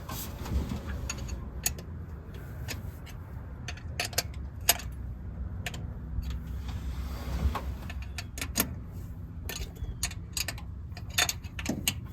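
Ford F250 pickup engine idling steadily with a low rumble, while metal tools and parts clink and tick sharply many times near the engine.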